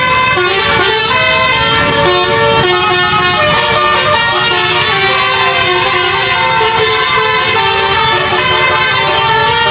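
Basuri telolet horn on a tour bus playing a tune: a loud, continuous run of held horn notes that change pitch every half second or so, with several pitches sounding together.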